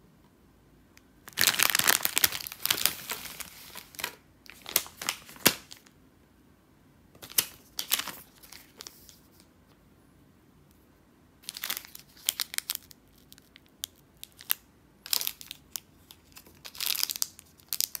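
Crinkling of plastic candy packaging, the bags and individually wrapped cough drops, being handled in several irregular bursts with quiet gaps between; the longest and loudest burst comes about a second in.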